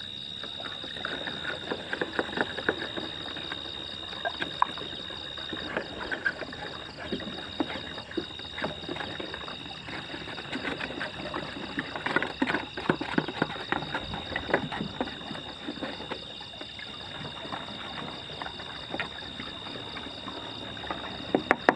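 Water and pesticide mix sloshing and splashing in a plastic sprayer tank, with irregular small knocks from handling the container. A steady high insect trill continues behind.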